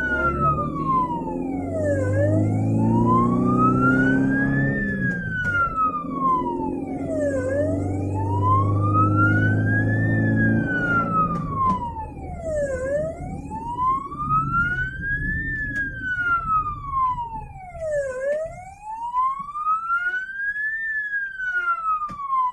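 Ambulance electronic wail siren sounding from inside the vehicle's cab, sweeping slowly up and down in pitch about every five seconds. The ambulance's engine is heard beneath it, stronger in the first half.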